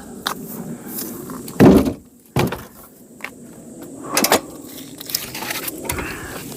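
Heavy wooden knocks and clatters of firewood logs being worked, the loudest about a second and a half in, followed by two more about a second and two and a half seconds later, with lighter taps between.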